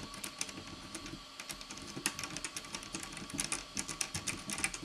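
Irregular small metallic clicks and taps as nuts are threaded onto ukulele tuning-machine posts on a plastic headstock, with metal parts and a small tool knocking lightly against the hardware.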